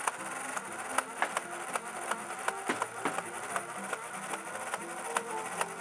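Motorized flywheel Nerf blaster, its flywheels running with a buzzing whine while foam darts fire from the magazine in a string of irregular sharp clicks, several a second.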